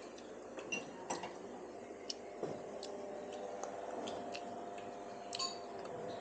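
Faint, irregular light clicks and clinks of eating utensils against bowls during a meal, over a low steady room hum.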